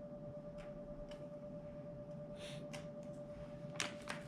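Quiet room with a steady faint high hum, broken by a few soft clicks and a brief rustle of plastic bait packaging being handled, with sharper clicks near the end.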